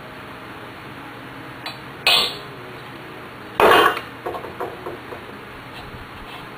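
Metal clanks at the valve of an empty steel propane tank as it is worked by hand and with a metal rod: two loud knocks about two and three and a half seconds in, then a few lighter clinks.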